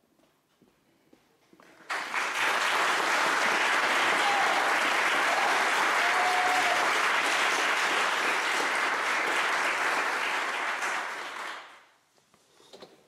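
Audience applauding. It starts suddenly about two seconds in, holds steady, and dies away near the end.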